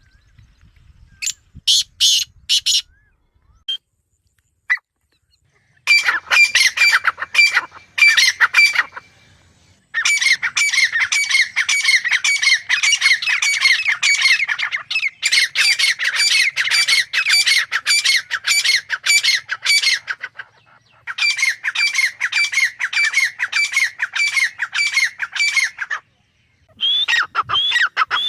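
Grey francolin calling: long runs of rapidly repeated sharp notes, several a second, in bouts broken by short pauses, with a few scattered notes in the first seconds.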